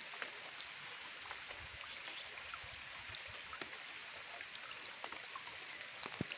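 Soft steady rain hiss with scattered single raindrops ticking close by, a couple of slightly louder ticks near the end.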